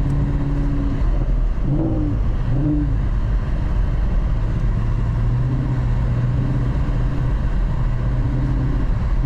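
2019 Chevrolet Camaro SS 1LE's 6.2-litre V8 running under throttle while driving in snow. The note wavers briefly about two seconds in, then holds steady.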